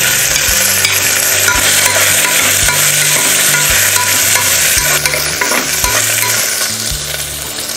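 Sliced onion sizzling in hot coconut oil with whole spices in an aluminium pressure cooker, a steady hiss, stirred with a spoon.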